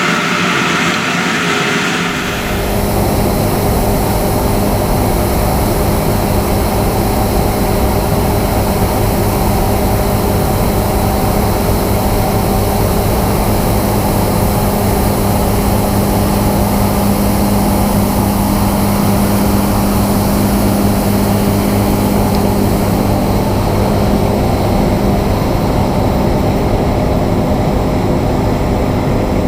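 Diesel harvest machinery running steadily under load, a deep engine drone with a held hum. About two seconds in, a higher, hissier sound gives way to it abruptly.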